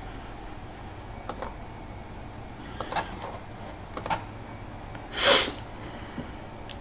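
A few sharp clicks, typical of a computer keyboard or mouse, coming in small pairs spread over about three seconds. A short, louder rush of noise follows about five seconds in.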